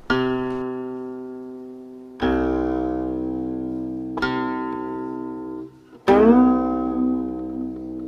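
The 1,267-year-old guqin Jiuxiao Huanpei played solo: four low plucked notes about two seconds apart, each left to ring and fade with rich overtones. The last note slides up in pitch and then wavers, the guqin's left-hand slide and vibrato ornaments.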